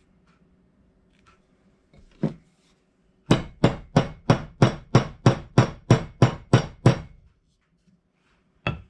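Claw hammer striking a metal wedge into the end of a wooden hammer handle, setting it crossways in the eye of an old claw hammer head to lock the head on. One light tap, then a quick, even run of about twelve metal-on-metal strikes at about three a second, and one more strike near the end.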